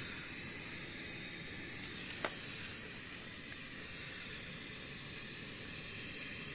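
Portable butane cartridge stove burner hissing steadily under a pot of water, with one sharp tick about two seconds in.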